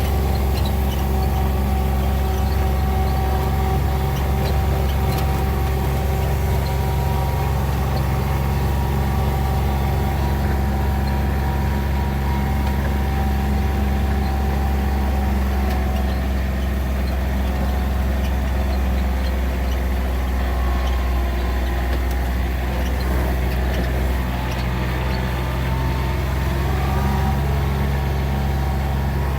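Motor vehicle engine running steadily with road noise, an even low hum that holds throughout.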